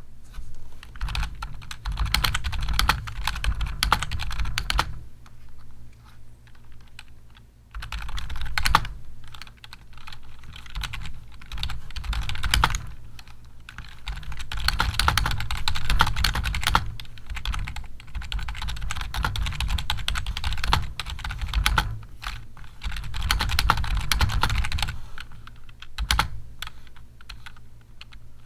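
Typing on a computer keyboard in runs of fast keystrokes, with a lull of a couple of seconds about five seconds in and a shorter one near the end.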